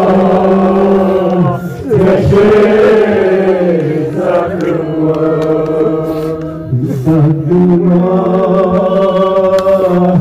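Men's voices chanting a Shia Muharram nauha (mourning lament) together, in long drawn-out phrases with brief breaks between them.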